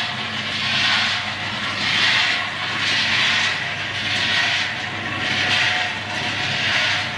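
Peanuts tumbling in the rotating drum of a small gas-fired roaster. It makes a swishing rush that swells and fades about once a second, over the steady low hum of the running machine.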